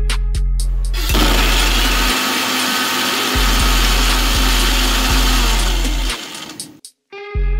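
Electric mixer grinder running for about six seconds, starting about a second in and stopping near the end, grinding slices of white bread into crumbs. Background music with a steady beat plays before and after it and partly underneath.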